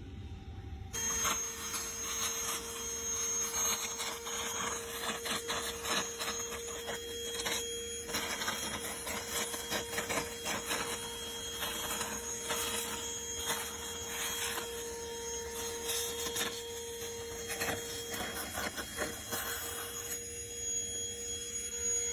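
Outdoor air-conditioning condenser unit running: a steady mechanical hum with a held tone, starting abruptly about a second in, with many small clicks over it.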